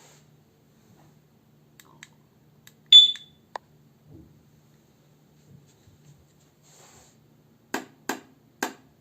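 Electric-bike security alarm giving one short, loud, high-pitched chirp about three seconds in. Three knocks follow near the end.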